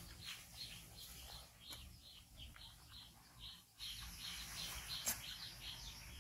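Small birds chirping repeatedly in the background, faint at first and louder and busier from about four seconds in, with one sharp click near the five-second mark.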